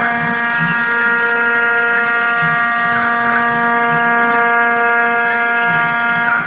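CNC 3040 desktop router's spindle running with a steady high whine while its end mill cuts a circular pocket in metal plate. A low pulse comes about twice a second, and a faint rising-and-falling sweep about every three seconds.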